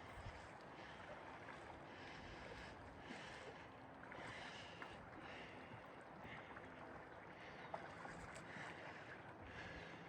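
Faint water swishes from a small paddled boat on a shallow river, coming about every second and a half, with a few small knocks and one sharper knock near the end.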